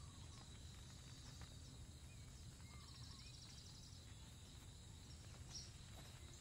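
Faint outdoor ambience: a quiet steady hiss with a few scattered bird chirps and a short rapid trill about three seconds in.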